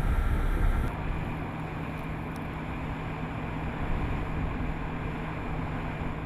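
Drilling rig's engine running steadily, loud for the first second. After an abrupt change it becomes a steadier, quieter hum with a constant low drone.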